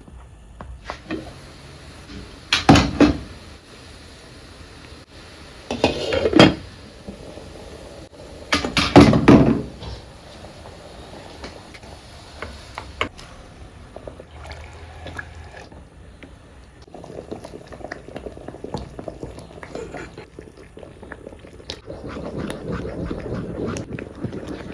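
Household handling noises: three loud clattering bursts a few seconds apart, then softer, steadier handling sounds toward the end.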